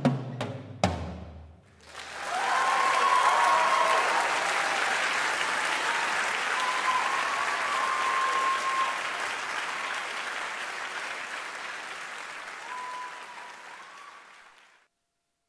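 Last strikes on a set of drums (concert toms and bongos) in the first second, ringing out; then, after a brief pause, an audience applauding, slowly dying away near the end.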